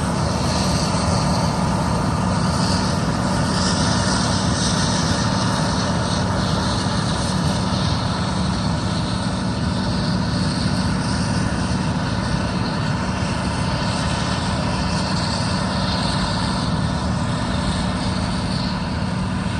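John Deere combine harvester running steadily while harvesting soybeans, a constant machine drone with a steady low hum.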